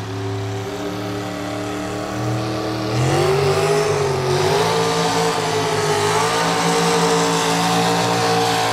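Engine of a modified Chevrolet square-body pulling truck, two-wheel drive, running under heavy load as it drags a weight-transfer sled. About three seconds in it revs up, then holds high revs with a slightly wavering pitch.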